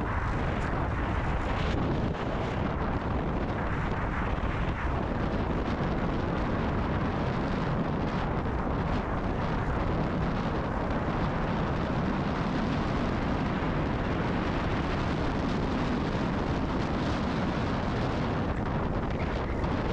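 Steady wind roar buffeting the microphone of a moving motorcycle, with the Kawasaki KLR650's single-cylinder engine and tyre noise blended underneath.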